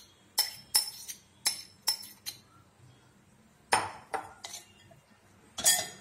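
Steel spoon knocking and scraping against glass bowls, a string of sharp clinks with the loudest near the end, as drained flattened rice is tipped from one glass bowl into another.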